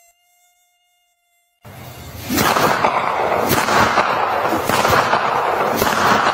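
Mosquito buzzing sound effect. A faint, thin high whine comes first. From about a second and a half in, it gives way to a loud, rough buzzing that swells up and keeps going.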